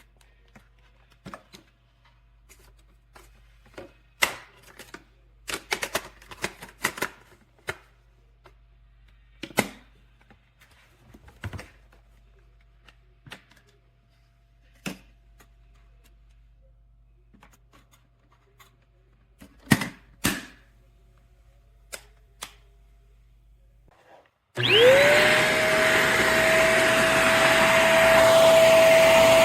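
Scattered clicks and knocks. About 24 seconds in, the elezon F800 corded stick vacuum's motor switches on: its whine rises quickly to a steady high pitch over loud rushing air.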